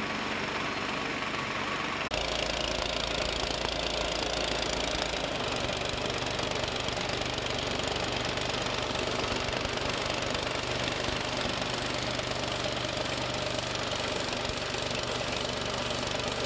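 Wood-shaving pulverizer machine running steadily with a continuous mechanical drone and a low hum. Its sound shifts abruptly about two seconds in, then stays steady.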